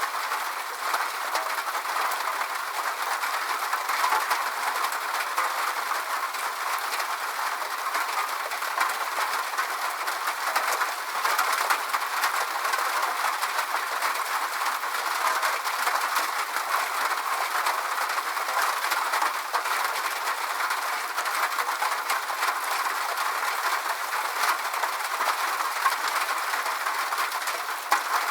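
Steady rain falling, an even hiss with a dense patter of fine drops and no deep rumble.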